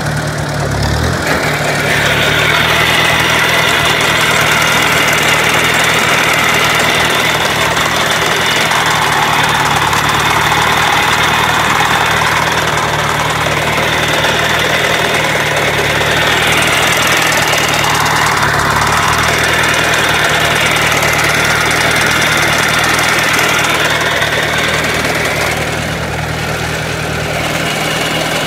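1956 Ford 860 tractor's four-cylinder engine running steadily under load in first gear, driving a Massey Ferguson Dyna-Balance sickle bar mower through standing oats. A higher-pitched layer, likely the mower's cutter, comes in about two seconds in and eases near the end.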